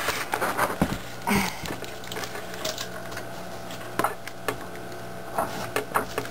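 Metal internals of a 4L80E transmission clicking and knocking against the case as the shaft is worked by hand to draw the parts out. The sound is a scattering of irregular clicks and knocks, the largest about a second and a quarter in and around four seconds in, over a steady low hum.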